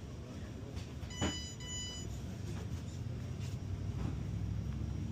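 A short electronic beep about a second in, starting with a click and lasting under a second, over a low steady background hum.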